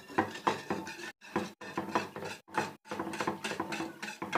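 A spoon stirring and scraping around a pan of orange juice thickened with cornflour as it cooks and begins to thicken, in repeated strokes with brief breaks.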